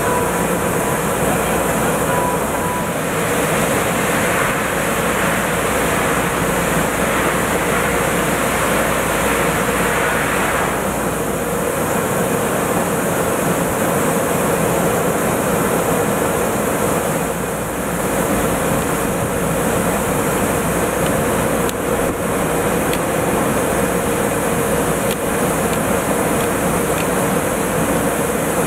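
Steady, loud industrial machinery noise from drilling-rig equipment, with a constant hum underneath. A hissing layer joins about three seconds in and drops away about eight seconds later.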